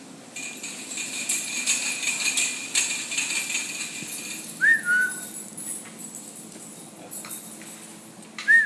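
Small dog giving two short, high whines, each rising then dropping in pitch, about halfway through and near the end. Before them come a few seconds of metallic jingling and clinking.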